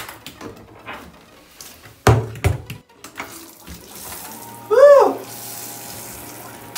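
A handheld shower head is handled and knocked against the bath, with two loud knocks about two seconds in. Then the shower spray comes on, hissing steadily into the bathtub over a low steady hum, with a short loud tone that rises and falls in the middle.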